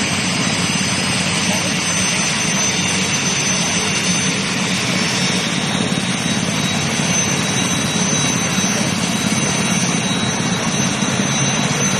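Light army helicopter's turboshaft engine running steadily on the ground, a continuous turbine whine with thin high tones over a broad rushing noise.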